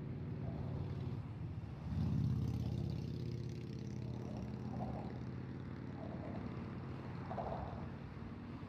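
Motor-vehicle traffic: a steady engine drone, loudest as a vehicle goes by about two seconds in.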